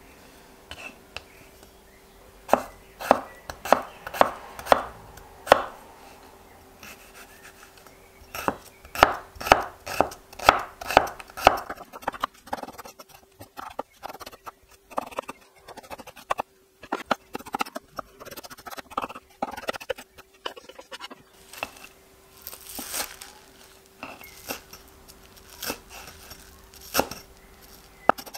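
Chef's knife chopping radishes on a wooden cutting board. It comes in groups of sharp knocks, then a run of quicker, lighter strokes as they are diced, and a few more cuts near the end as the knife moves on to chives.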